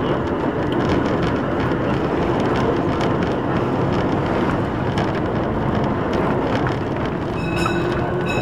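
Vintage electric tram running along the track, heard from on board: a steady rumble of wheels on the rails and running gear, with a faint steady whine joining near the end.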